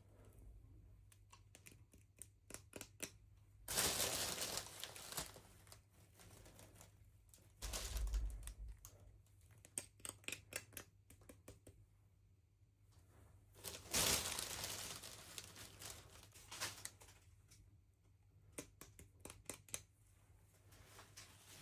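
Packaging being handled and opened: crinkling and tearing with small clicks and taps, and two louder rustling bursts about four seconds in and again about ten seconds later. A low thump comes near the middle.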